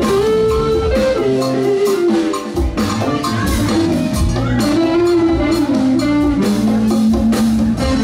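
Live funk band playing with drum kit, bass and electric guitar, and a sustained lead melody that bends in pitch over a steady beat.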